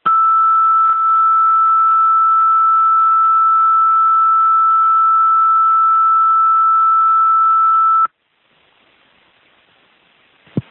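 Fire dispatch alert tone over a radio: one steady high tone for about eight seconds, sent to alert the company's pagers before the voice dispatch. It cuts off abruptly into faint radio hiss, with a click near the end.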